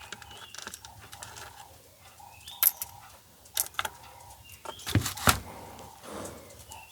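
Scattered small clicks and taps of plastic parts and wiring being handled and fitted back into an opened blood pressure monitor's casing, with the sharpest pair of knocks a little after halfway.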